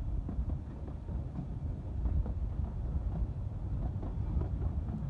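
Narrow-gauge Talyllyn Railway carriage rolling along the track: a steady low rumble with frequent irregular clicks and rattles from the wheels and coach.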